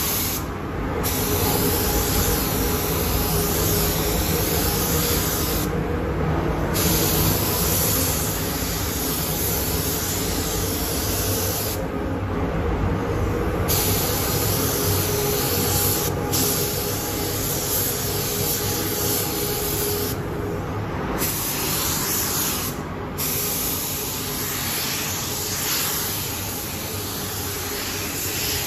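Gravity-feed spray gun hissing as it sprays paint in long passes, stopping briefly several times when the trigger is let go, over a steady low hum.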